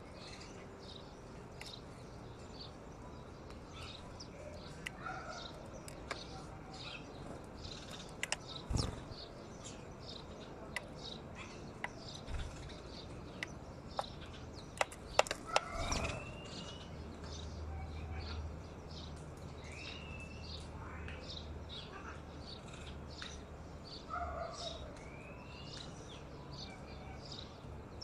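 Sparrows chirping in a steady stream of short high chirps, with a few rising calls and several sharp clicks, the loudest a little past the middle.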